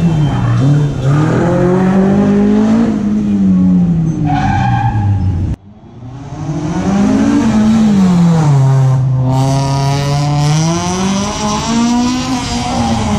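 Car engine revving up and down as the car works through a cone course, with a short tire squeal about four seconds in. The sound cuts off abruptly about five and a half seconds in and comes back with a car engine again rising and falling in pitch.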